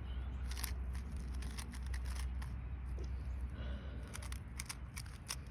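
A plastic twisty puzzle cube being turned quickly by hand: a run of irregular small clicks and clacks as the layers snap round, over a steady low hum.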